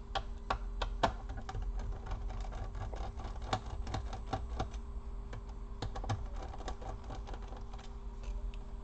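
Small screwdriver working on a laptop's display hinge screws: irregular light clicks and taps, several a second, over a faint steady hum.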